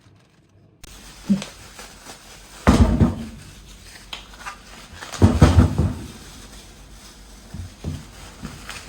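Household handling sounds: a few knocks and two louder bouts of clatter, as of things being picked up and set down.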